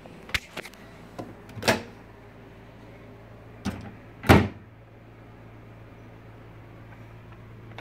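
Microwave oven door being handled: a few light clicks, then two louder bangs, one near two seconds in and the loudest about four seconds in, over a steady low hum.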